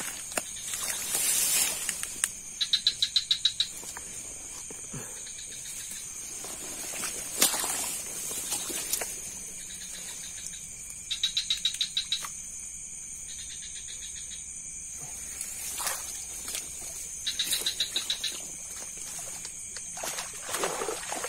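Night swamp ambience: a steady high drone of insects, broken four times by a loud burst of rapid pulsed chirps about a second long. A few rustles and one sharp click, the loudest sound, come in between.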